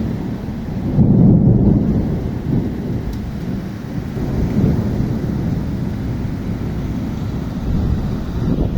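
Thunder rumbling through a monsoon rainstorm: a deep rolling rumble that swells about a second in and then rolls on, over the hiss of rain.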